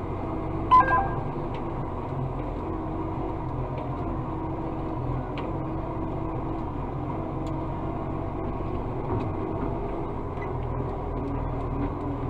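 Acco refuse truck running, heard from inside the cab, a steady drone with a hum that comes and goes while the bin-lift joystick is worked. A short beep sounds about a second in.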